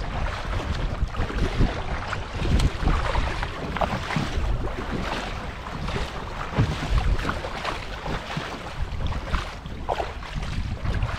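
Kayak paddle blades dipping and splashing in choppy sea water with each stroke, over wind buffeting the microphone.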